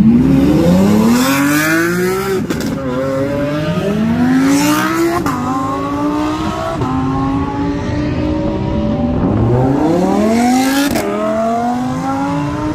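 Lamborghini supercar engines accelerating hard. The engine note climbs steeply, drops back sharply at each upshift, then climbs again, several times over, with a crack or pop at some of the shifts.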